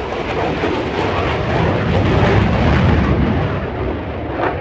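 Loud jet noise from the F-35C Lightning II's single F135 afterburning turbofan, a deep steady rumble that eases a little near the end.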